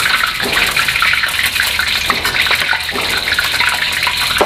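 Pieces of boiled chicken deep-frying in hot oil in a wok: a steady sizzle with scattered crackles and pops.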